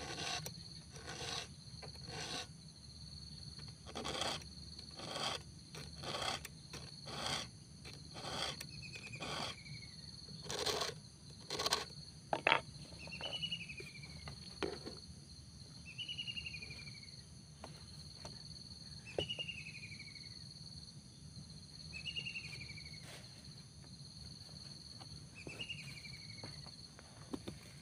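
Round file rasping across the cutters of a chainsaw chain, about one stroke a second, as the chain is sharpened; the strokes stop about twelve seconds in, just before a sharp click. After that a short falling chirp repeats about every three seconds over a steady high insect drone.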